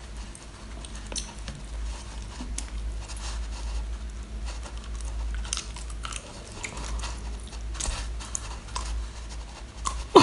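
Close-up mouth sounds of biting and chewing a whole sea cucumber: scattered wet smacks and small clicks as she bites and pulls at it, over a steady low hum.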